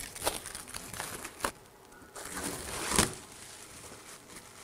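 Plastic protective wrap crinkling and rustling as it is peeled off a 3D printer's clear plastic panels. There are a couple of short sharp rustles, then a louder swell of crinkling about three seconds in.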